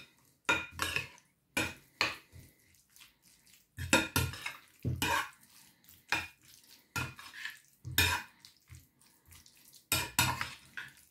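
A metal spoon clinks and scrapes against a ceramic bowl while stirring a wet grated beetroot and sour cream salad. The strokes are short and irregular, about one or two a second, with a brief lull a few seconds in.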